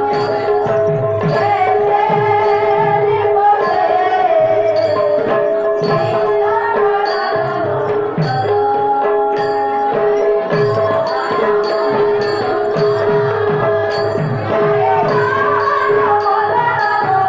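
Indian devotional dance music: a hand drum beating a steady rhythm with low strokes that bend in pitch, small cymbals ticking in time, and a held drone under a melody line.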